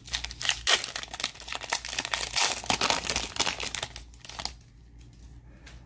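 Plastic trading-card pack wrapper crinkling as it is torn open, a dense crackling that dies away about four and a half seconds in.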